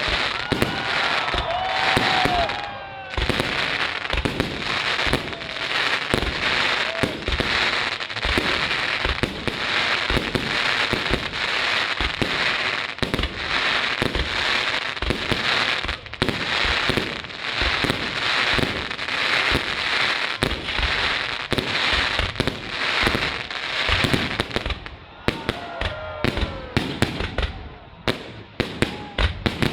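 Fireworks display: a dense, continuous run of bangs and crackling, with a few pitched whistling glides in the first seconds and again near the end. The bangs thin into separate reports for the last few seconds.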